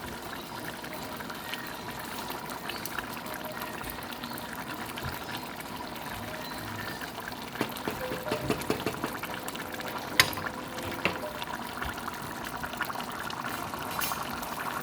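Watery liquid sounds, a steady trickling noise with scattered small clicks and knocks, and one sharper click about ten seconds in.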